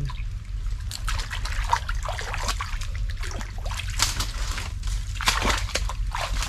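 Shallow ditch water sloshing and splashing in irregular strokes, stirred by someone wading and groping through it.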